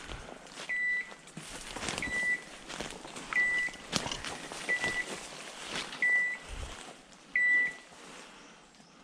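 A hunting dog's beeper collar gives a short, high electronic beep about every 1.3 seconds, six times, then stops near the end: the point-mode signal that the setter is holding a point, here on a woodcock. Between the beeps, footsteps crunch through leaf litter and brush through undergrowth.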